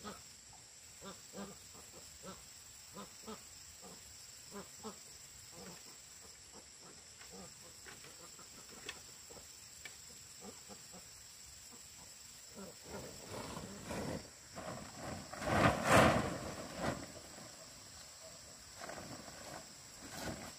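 Insects chirring in a steady high drone, with a run of soft knocks about twice a second in the first half and a louder rough noise that swells and peaks about three-quarters of the way through.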